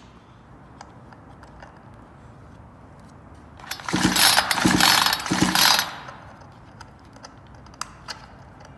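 Chainsaw recoil starter pulled: a rattling, whirring burst of about two seconds as the cord runs out and the engine turns over freely with its spark plug removed.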